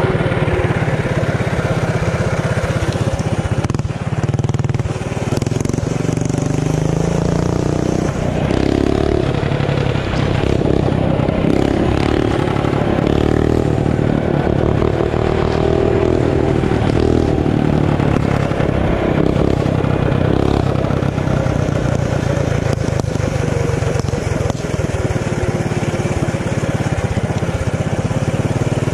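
Performance mini bike's small engine running under way, its pitch rising and falling as the throttle is worked, with occasional knocks.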